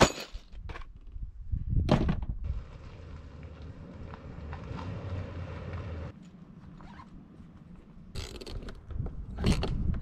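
Gear being handled on a Jeep's roof rack: a sharp knock at the start as a cargo case and crate are stowed, then a few clunks and scrapes with a zipper-like rasp, and a steady low rushing noise for a few seconds in the middle.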